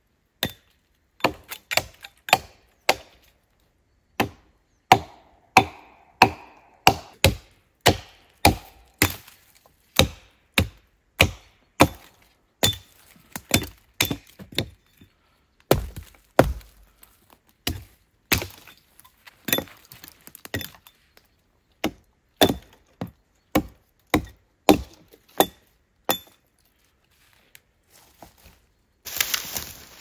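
Hatchet blows chopping branches off a felled tree trunk: a steady run of sharp wooden chops, about one to two a second, with a brief pause near the end.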